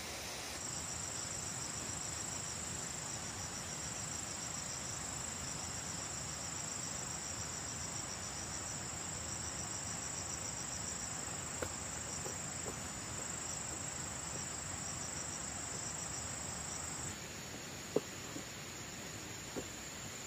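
Forest insects trilling in a steady, high-pitched chorus that drops in level about 17 seconds in, with a few faint clicks.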